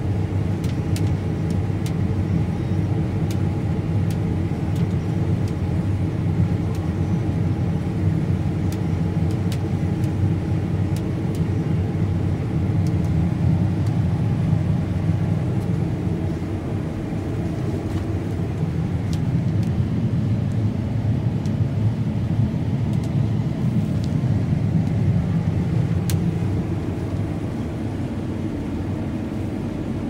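John Deere S780 combine harvester running steadily while cutting soybeans, heard from inside the cab as an even low drone. A few faint ticks are scattered through it.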